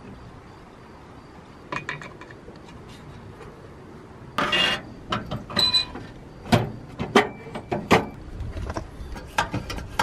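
Metal clicks, knocks and a scrape from the fuel tank of a two-burner petrol camp stove being handled and fitted back into the stove. It is quiet at first, with a loud scrape about four seconds in and then a quick run of clanks and clicks, one with a short metallic ring.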